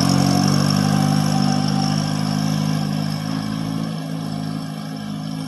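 Satoh S650G micro tractor engine running steadily as the tractor drives off, growing fainter as it moves away.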